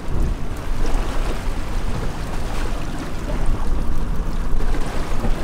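Wind buffeting the microphone over water washing against the hull of a small boat at sea: a steady, deep rush of noise.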